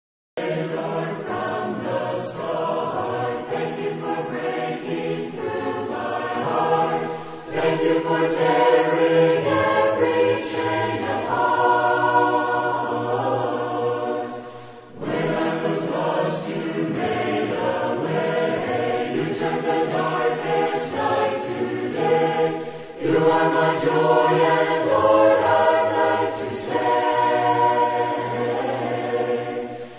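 A choir singing, starting abruptly after a brief silence about half a second in, in long sung phrases with short breaks between them.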